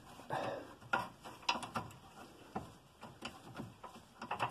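Irregular metallic clicks and knocks, a cluster near the end, as a subframe mounting bolt is worked up into its thread under the car.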